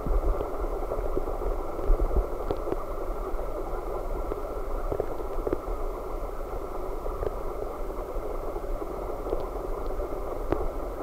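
Aeration bubbles streaming through a small fish tank: a steady bubbling hiss with faint scattered ticks and a low rumble underneath.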